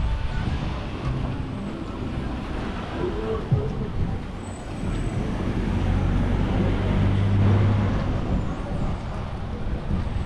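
Street traffic: a motor vehicle's engine running close by over general road noise, growing louder about six seconds in and easing off near the end.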